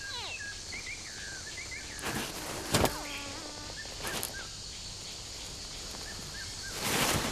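Nile crocodile hatchlings chirping: many short, high calls that hook up and down in pitch. A brief knock comes about three seconds in, and a short rush of noise comes near the end.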